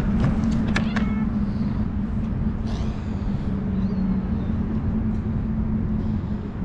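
A motor vehicle's engine running with a steady low hum, with a few sharp clicks in the first second.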